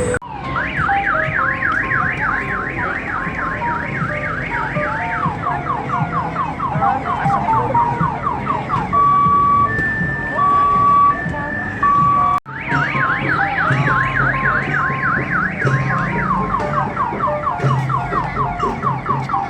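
Electronic multi-tone alarm siren cycling through its patterns: a fast run of rising sweeps, then falling sweeps, then steady beeps alternating between two pitches. The cycle starts over after a brief dropout about twelve seconds in.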